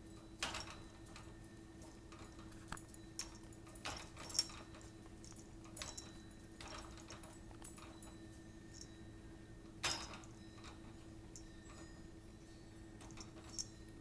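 Scattered light metallic clicks and clinks, one every second or so and irregular, as a cat bats at the rack of an open dishwasher, its metal collar tag clinking. A faint steady hum runs underneath.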